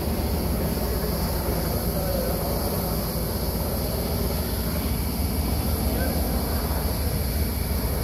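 Steady drone of an aircraft's engine overhead, loud and even throughout.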